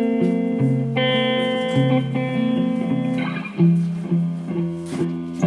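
Background music played on a plucked guitar: held notes ringing and changing about once a second, with a bass line underneath.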